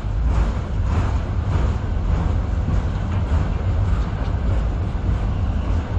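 Freight train's autorack and boxcars rolling past close by: a steady low rumble of steel wheels on rail, with faint repeated clicks of the wheels.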